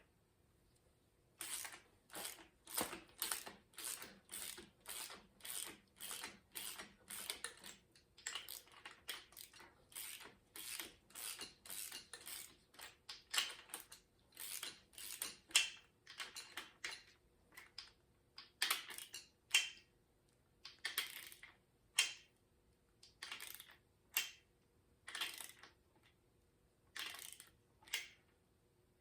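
Metal hand tools working a pushrod engine's valve train during a valve lash adjustment: a long run of short metallic clicking strokes, about two a second at first, then more irregular and spaced out.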